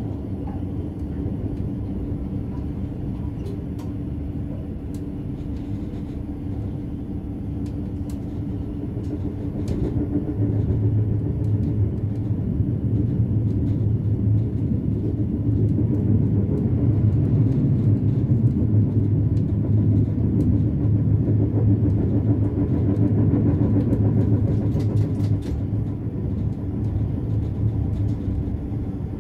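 BLS RABe 515 double-deck electric multiple unit running, heard from the driver's cab: a steady low rumble of wheels on rail and the traction drive, growing louder about a third of the way in and easing off a little near the end.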